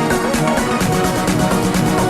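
Background music with a steady, fast, even beat.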